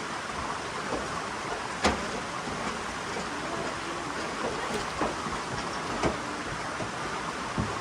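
Steady rush of falling water, with a few sharp knocks scattered through it.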